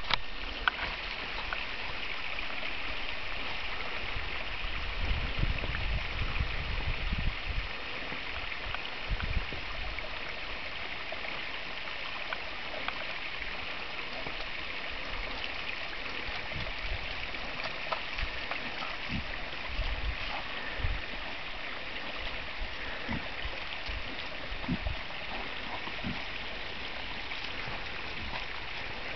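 Steady hissing noise, strongest in the middle-high range, with scattered low thumps and rumbles and a few short knocks.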